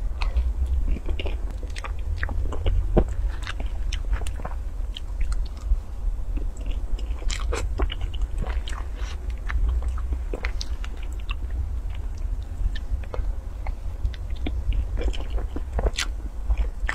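Close-up wet chewing and mouth clicks of someone eating a soft chocolate Oreo cream roll cake by the spoonful, with frequent short crunches and the occasional clink of the metal spoon. A steady low hum runs underneath.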